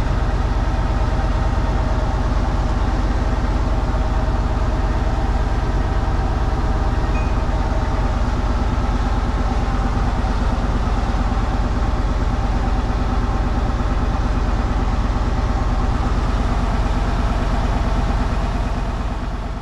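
A wooden river boat's engine running steadily under way, a low, even drone heard from the wheelhouse.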